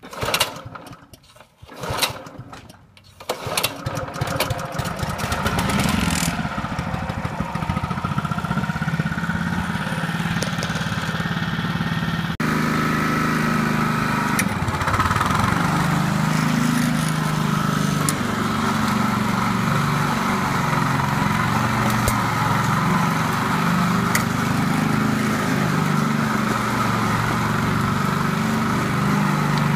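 Honda HR195 push mower's small engine cold-started by pull cord, catching after a few pulls within the first three seconds, then running steadily. There is a sudden change in the running sound about twelve seconds in.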